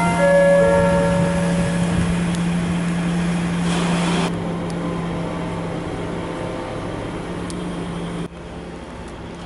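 Heavy vehicle engine running with a steady low hum, a brief rush of noise about four seconds in, the whole sound dropping a little in level after about eight seconds.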